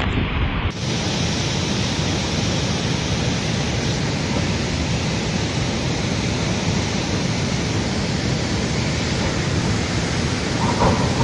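A muddy river in flood, rain-swollen and carrying rock and silt, rushing past as a steady, unbroken noise of torrenting water. The tone of the noise shifts slightly under a second in, at a cut between shots.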